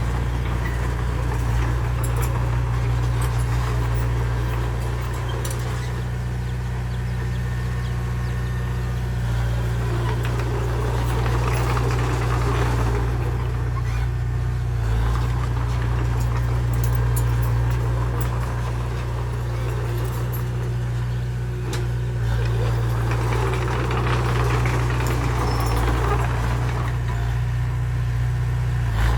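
Heavy vehicle's diesel engine running steadily, with a few faint clicks.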